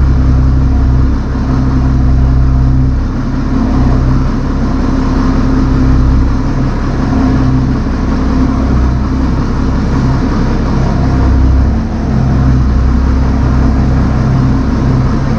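Tractor engine running steadily at moderate revs while moving equipment, its level dipping briefly a couple of times as the load changes.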